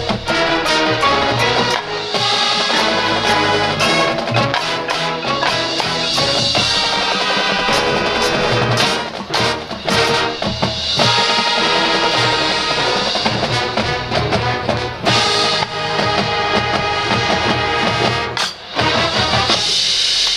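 High school marching band playing loudly, with brass (trumpets and trombones) over drums and percussion.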